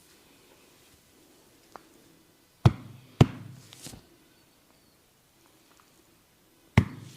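A barber's hands striking the client's head during a percussive head massage: two sharp slaps about half a second apart, a softer one, then another sharp slap near the end.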